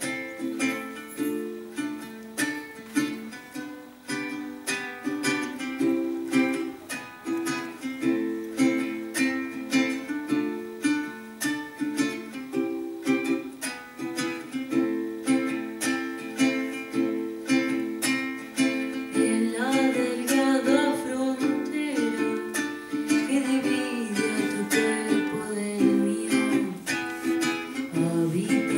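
Acoustic guitar played with plucked notes in a repeating pattern. From about two-thirds of the way in, a woman's voice joins, singing over the guitar.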